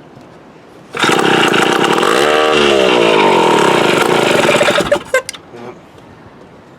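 Mid-1950s Strunk Speed Demon chainsaw engine firing up about a second in and running loudly for about four seconds, its pitch swinging as it is revved, then sputtering a few times and dying. It won't keep running, which the owner puts down to a carburetor that needs a rebuild after the saw sat unused for decades.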